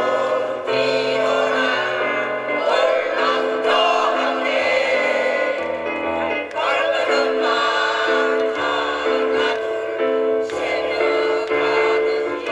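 Mixed choir of older men and women singing together in harmony, with long held notes.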